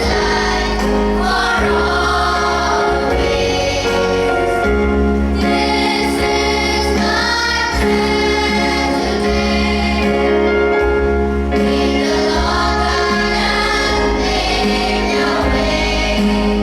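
A choir singing a prayer song over long held instrumental chords, the melody rising and falling in phrases of a few seconds.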